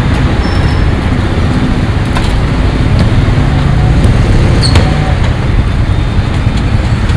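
Steady street traffic rumble, with a few sharp clicks over it.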